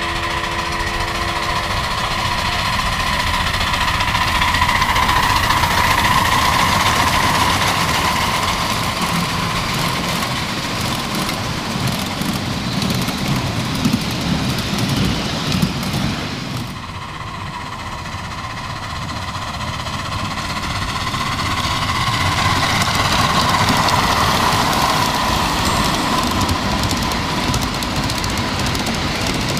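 A 7½-inch-gauge miniature locomotive running by with a steady, rapid pulsing beat. It grows louder about five seconds in, drops away a little past the middle, and swells again near the end.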